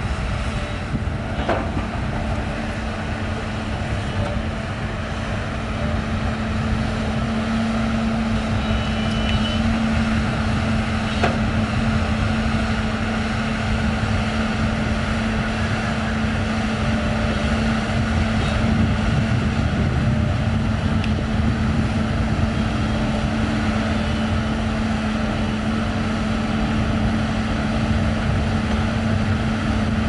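LiuGong crawler excavator's diesel engine running steadily with a constant hum while the machine digs sand.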